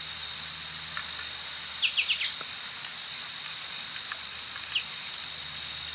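American goldfinch calling: a quick run of about five short chirps about two seconds in, and one more chirp near the end, over a steady high-pitched background hum.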